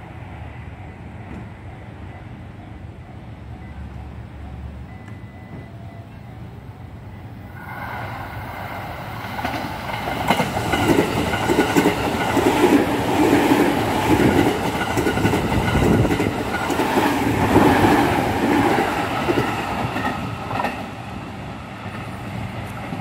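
An electric commuter train on the Joban Line runs past close by, with wheels clicking over the rail joints and a steady whine from the train. It comes in loud about eight seconds in, is loudest in the middle, and fades as it runs away near the end.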